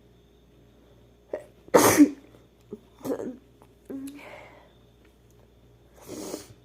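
A woman sneezes once, sharply and loudly, about two seconds in, with a short intake just before it. Quieter breathy sounds follow after the sneeze.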